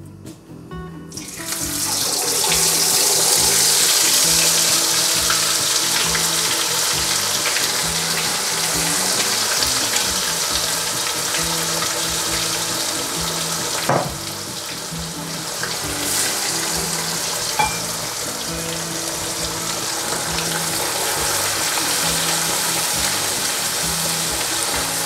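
Marinated chicken pieces deep-frying in hot oil in an iron kadai: a loud sizzle starts about a second in as the chicken goes into the oil, then settles into a steady bubbling hiss. A few sharp clicks sound around the middle.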